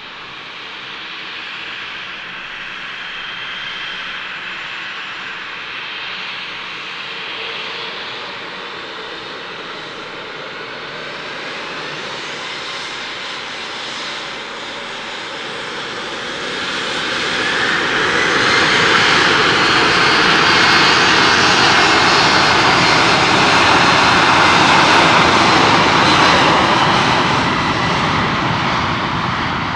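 Embraer E190's twin GE CF34-10E turbofan engines: a steady whine at first, then, a little over halfway through, rising to takeoff power as the jet accelerates down a rain-soaked runway, the noise swelling to its loudest and easing slightly near the end.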